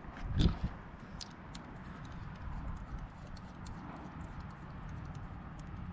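Handling of an AR-15 and its red-dot sight: a knock about half a second in, then faint, scattered clicks.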